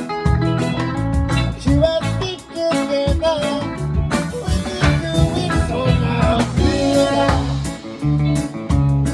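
Live reggae band playing an instrumental passage, with guitar, bass and drum kit keeping a steady beat.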